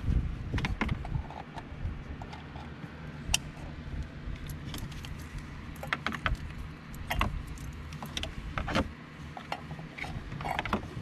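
Plastic wiring-harness connectors being unplugged and handled behind a truck's dashboard: irregular sharp plastic clicks and rattles.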